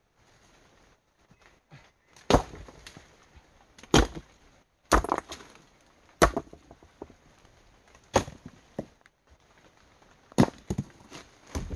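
Rocks thrown down one at a time onto a pile of stones, each landing as a sharp clack of stone on stone with a short rattle after it: about seven impacts, one every second or two.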